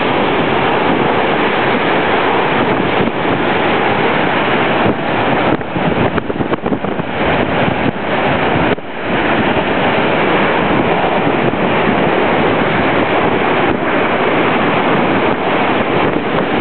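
Hurricane-force bura wind, near 200 km/h, blasting the microphone in a loud, steady rush of noise, with storm waves breaking on the shore underneath. The noise dips briefly about nine seconds in.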